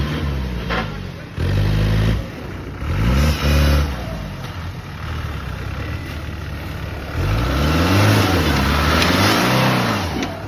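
Off-road 4x4's engine revved in repeated bursts, its pitch rising and falling each time, with a longer stretch of revving in the second half over a steady hiss.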